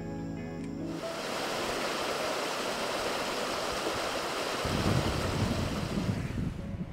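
Rushing water hiss, with wind buffeting the microphone in a low rumble from about two-thirds of the way in; the hiss fades near the end.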